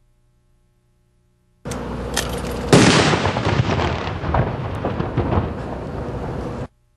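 Consumer firework going off: a loud noise starts suddenly about a second and a half in, with a loud bang about a second later. Sharp pops and crackling follow for about four seconds, then the sound cuts off abruptly.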